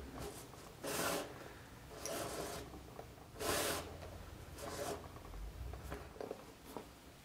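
Saddle-stitching thread drawn by hand through the stitch holes of a leather saddle seat, about four pulls a little over a second apart, each a short noisy swish, with fainter ones near the end.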